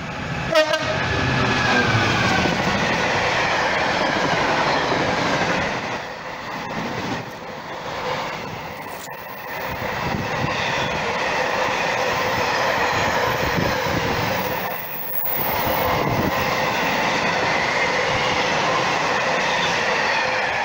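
Freightliner Class 66 diesel-electric locomotive passing at speed, its EMD two-stroke V12 engine running loud, with a short horn blast about half a second in. A long train of mostly empty container flat wagons follows, rumbling and clattering steadily past on the rails.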